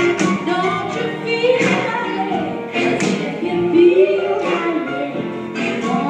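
Blues music with a singer, playing for the dancers.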